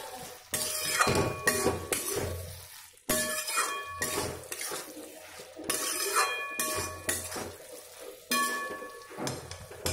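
Metal spatula stirring a thick vegetable curry in a metal kadai, scraping and knocking against the pan in clusters of strokes; each knock leaves a short metallic ring.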